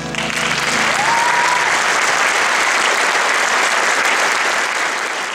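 Audience applause breaking out as the final chord of the song dies away. One short rising whistle about a second in.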